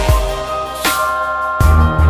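Electronic background music: held synth notes over a deep bass line with kick-drum hits. The bass drops away soon after the start and comes back strongly near the end.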